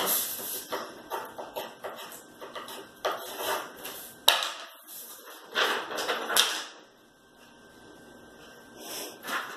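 Ballpoint pen scribbling on a sheet of paper on a desk: a run of quick scratchy strokes with a sharp tap about four seconds in, then quieter, with a short rustle of paper near the end.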